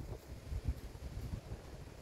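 Wind rumbling on the microphone, with soft low thumps and scuffling from two dogs play-wrestling on bare dirt.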